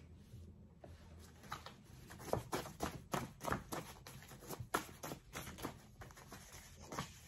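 A deck of paper oracle cards being shuffled and handled: an irregular run of short, soft card clicks and flicks.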